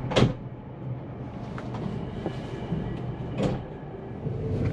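Moving passenger train heard from inside the carriage: a steady low rumble of the running gear, with two sharp knocks, one at the very start and one about three and a half seconds in, and a few faint ticks between.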